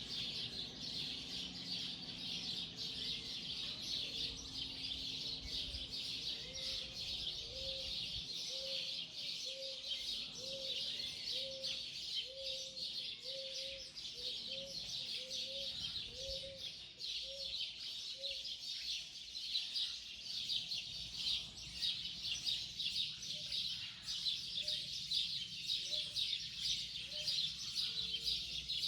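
Morning bird chorus: many birds chirping and calling at once in a dense, continuous high texture. Through it runs a low, short, arched note repeated steadily about one and a half times a second, for a long stretch in the middle and again near the end.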